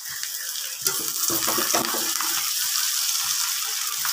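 Chow mein noodles being stirred and tossed with a steel spatula in a hot kadai, with a steady sizzle of frying and a few knocks and scrapes of the spatula against the pan about a second in.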